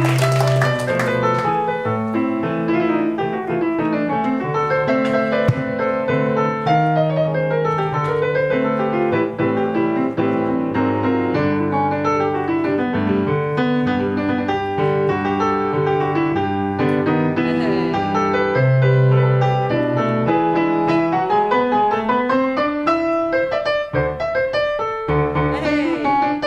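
Piano playing a melody over chords.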